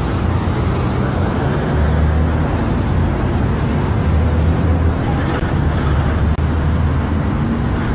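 Loud, steady road traffic noise with a heavy low rumble.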